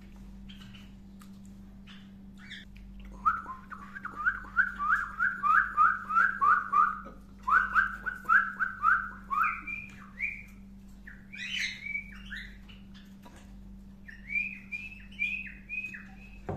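A pet bird whistling runs of quick, repeated slurred notes, about three a second, the later runs higher-pitched, with one sharper chirp in the middle. A steady low hum runs underneath.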